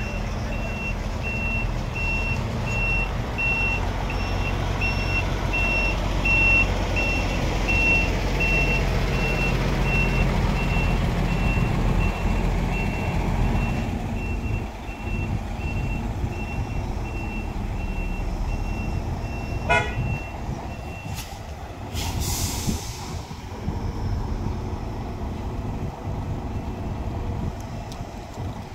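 Reversing truck: the reverse alarm beeps steadily over the running diesel engine of a Mitsubishi Fuso Super Great tractor unit, as it backs its trailer into place. The engine quietens about fourteen seconds in, the beeping stops about twenty seconds in, and a short hiss follows a couple of seconds later.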